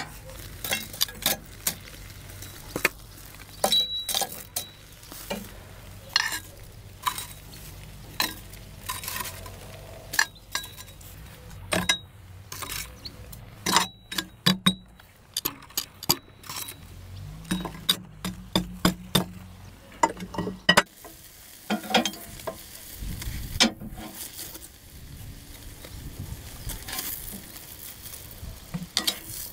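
Metal tongs clicking and clanking against old cast-iron charcoal box irons, lumps of charcoal and a grill grate: many sharp, irregular clinks. A low steady hum sits underneath for most of the first two-thirds.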